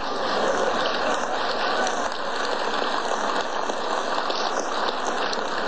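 Audience applauding and laughing, a steady dense clapping that holds at the same level.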